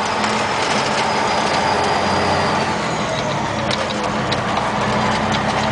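Heavy truck's engine running steadily under way, heard from inside the cab along with road noise, and a few small rattles and clicks in the second half.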